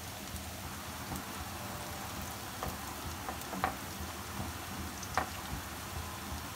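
Bread slices frying in butter in a grill pan, a soft steady sizzle with a few faint ticks.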